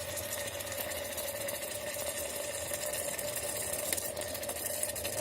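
Steady mechanical hum, like a small motor running, with a faint even hiss above it.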